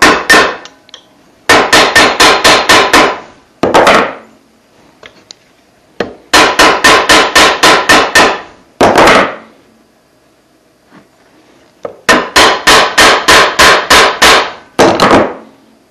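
Hammer striking the bent, rusty metal handle of an antique curry comb clamped in a bench vise, straightening it. The blows come in three quick runs of about five a second, each followed by a single blow, with pauses between.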